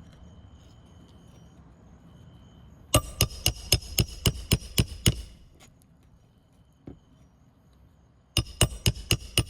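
Hand hammer driving a roofing nail to fasten a replacement asphalt shingle: a quick run of about ten strikes at about five a second, a single tap, then another quick run of strikes near the end.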